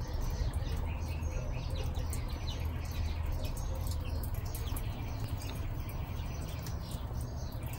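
Small birds chirping with many short, scattered calls over a steady low rumble.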